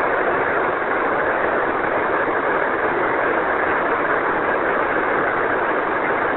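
Steady hiss of open-channel static on the Apollo 11 air-to-ground radio loop between transmissions, band-limited like a voice radio link.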